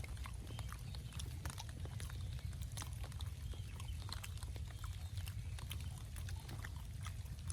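A person chewing and smacking while eating, with many small irregular wet clicks, over a steady low rumble.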